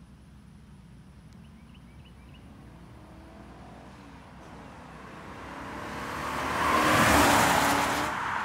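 BMW E39 540i's 4.4-litre V8 and tyres as the car approaches and drives past. The sound grows steadily louder to a peak about seven seconds in, then fades as the car moves away.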